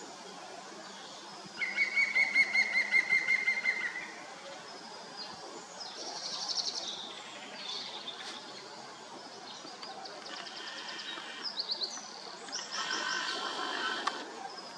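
Green woodpecker calling: a loud, rapid series of evenly repeated notes lasting a couple of seconds. It is followed by softer, shorter and higher bird calls and chirps.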